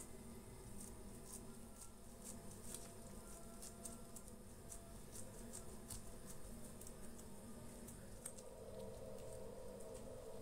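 Faint irregular taps and clicks of gloved fingers pressing a soft dough ball flat against a wooden tabletop, over a low steady hum.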